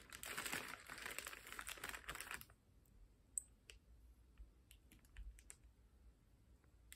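Small plastic accessory packet crinkling and rustling as it is handled, for about two and a half seconds, followed by a few faint scattered clicks as small picks are handled.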